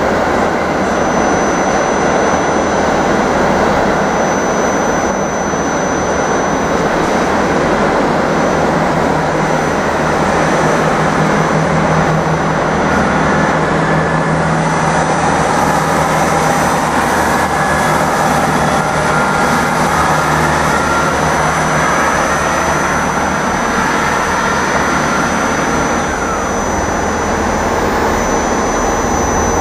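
Diesel train engines running steadily in the station, a loud continuous rumble with a thin, steady high whine over it.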